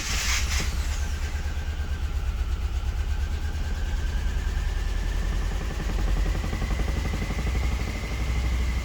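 Subaru Impreza flat-four boxer engine idling roughly just after starting, with an uneven pulsing beat and a faint high whine. It is still misfiring on cylinders 1 and 3.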